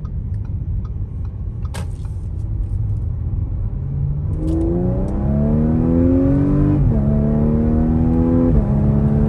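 Audi SQ5's supercharged V6 under a hard full-throttle pull, heard from inside the cabin. A low rumble rises into a climbing engine note about four seconds in. The note drops sharply twice as the tuned transmission makes quick paddle-shifted upshifts, and it climbs again after each one.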